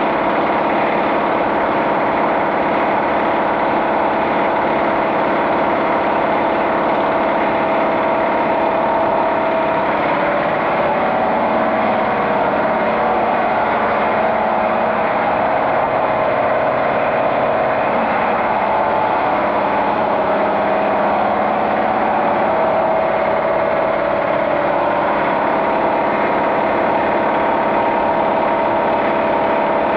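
A small engine running steadily at idle, its pitch wavering slightly about a third of the way in before settling again.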